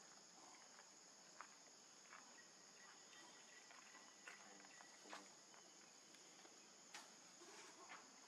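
Faint, steady high-pitched drone of insects, with a few soft clicks scattered through it.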